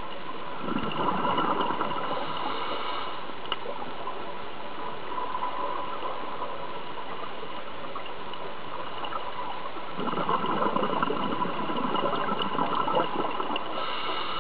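Scuba diver's regulator underwater: two long bubbly surges of exhaled air, one starting about half a second in and another about ten seconds in, over a steady underwater hiss.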